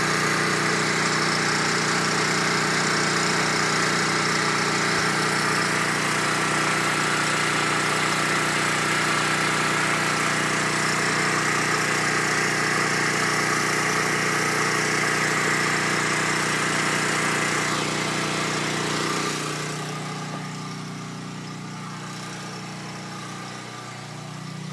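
Portable generator's engine running steadily under load, powering a fridge during a power outage, with a constant hum. It becomes quieter about three quarters of the way through.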